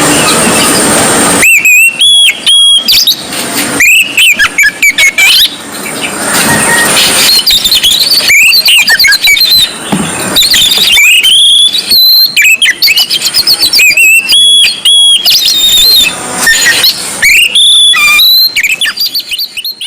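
Oriental magpie-robin (white-breasted kacer) singing vigorously: loud, varied whistled phrases of rising and falling notes, repeated in bursts with short breaks.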